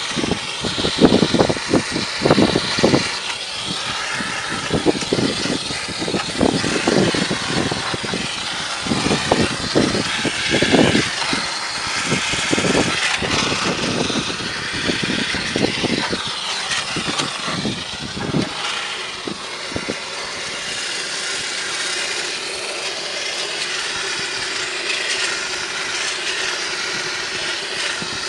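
Cleaning equipment working on a greasy exhaust fan: a broad steady hiss with irregular low knocks and rumbles, settling into a steadier running sound with a faint hum after about 19 seconds.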